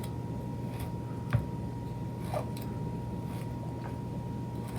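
Paring knife cutting into a lemon on a cutting board: scattered faint clicks and taps, with one sharper knock about a second and a half in and a lighter one a second later.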